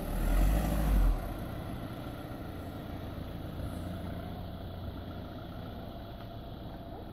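A car engine running steadily on the street, under general outdoor noise, after a loud low rumble in the first second.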